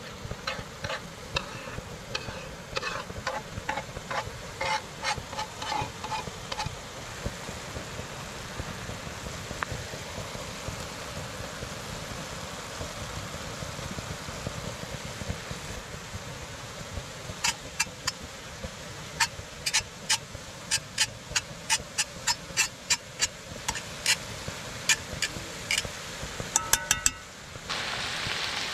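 Ground pork with green onion and garlic sizzling steadily in a cast-iron skillet, with a metal utensil clicking against the pan as it is stirred: a spell of taps in the first few seconds and a longer, quicker run of sharp clicks in the second half.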